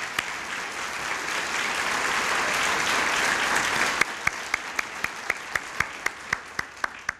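Audience of a roomful of people applauding. The clapping swells to a dense wash in the first few seconds, then thins to scattered single claps that die away near the end.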